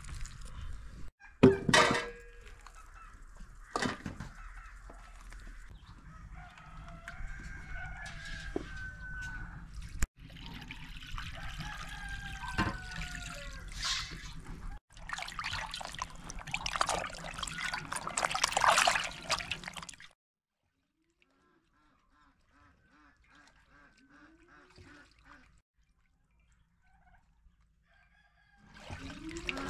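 Chickens clucking and a rooster crowing, mixed with knocks and handling noise from a carp being cleaned, then splashing as the fish is washed in a basin of water. Near the end comes a quiet stretch with only faint clucking.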